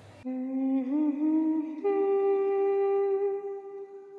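Background film score: a slow, sustained hum-like melodic note that wavers slightly, then steps up to a higher note held steadily and fades out near the end.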